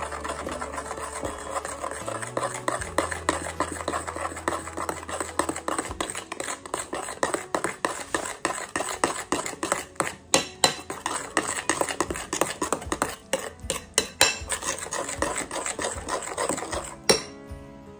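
Metal spoon stirring a thick fruit purée and cereal powder in a glass bowl, scraping and clinking against the glass in quick, irregular strokes, the sharpest clinks in the second half.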